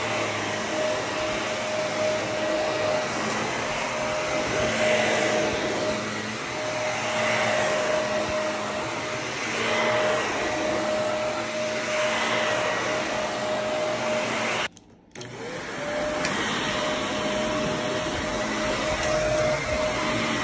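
Upright vacuum cleaner running steadily on carpet, its motor whine and airflow swelling and easing about every two and a half seconds with the push-and-pull strokes. The sound cuts out for about half a second some fifteen seconds in, then comes back.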